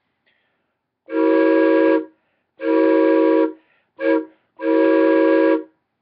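Homemade four-chime PVC train whistle, blown through its mouth tube, sounding its chord of four pipes tuned to a minor seventh (roughly E-G-B-D). It gives four blasts: three long ones of about a second each and a short third one.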